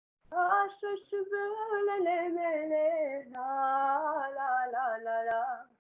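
A young woman singing solo and unaccompanied in two long phrases: the first winds slowly downward, the second holds lower notes with small turns, and she stops just before the end.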